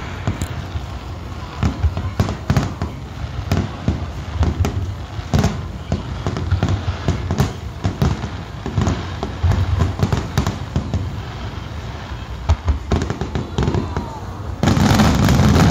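Aerial fireworks bursting one after another, a steady string of sharp bangs and booms, then a louder, dense barrage of rapid bangs near the end.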